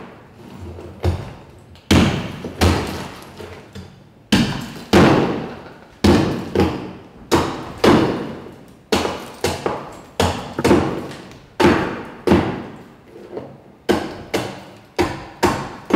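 Meat cleaver chopping block ice on a wooden floor: sharp, uneven chops, about one to two a second, as the ice is broken into small pieces for packing around a sorbet barrel's canister.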